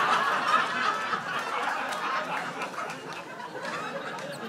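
Audience laughing, the laughter slowly dying down over a few seconds.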